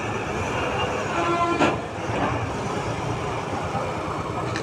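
A vehicle horn sounds once, briefly, about a second in, and stops with a sharp click, over a steady hubbub of traffic noise.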